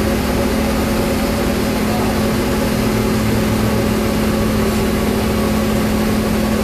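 Heavy diesel engine of a lifting crane running steadily at constant speed, a droning hum with a fixed pitch, holding a generator set on its hoist line.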